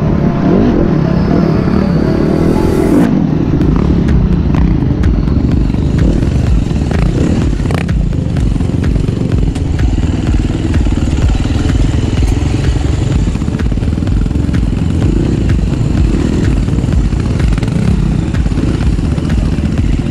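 Dirt bike engine heard on board the rider's own machine, revving up and down as it rides a rough forest trail. Clatter and knocks come from the bike going over bumps, with one sharp knock about eight seconds in.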